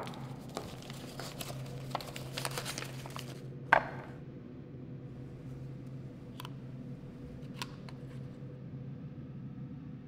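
Paper wrapping crinkling and tearing for the first three seconds as a package is unwrapped. Then comes one sharp click, followed by a few light clicks as a small hinged wooden box is opened and handled, over a low steady hum.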